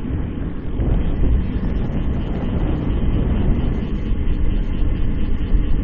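Wind rushing over a bike-mounted camera's microphone, mixed with tyre and road rumble from a time-trial bike, growing slightly louder as the bike gathers speed.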